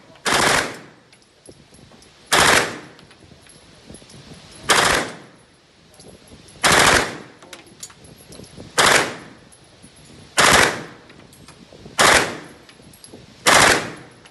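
Eight gunshots from a firearm, fired one at a time about every two seconds, each sharp crack trailing off briefly.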